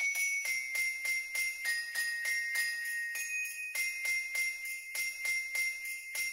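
Christmas music led by sleigh bells shaken in a steady rhythm about four times a second, over a high, bell-like melody of held notes, with almost no bass.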